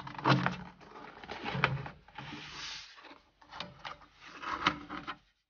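Vinyl banner backed with magnetic tape being pressed and smoothed onto the metal frame of a glass display cabinet: scattered light taps and clicks, with a brief rubbing slide a little after two seconds in.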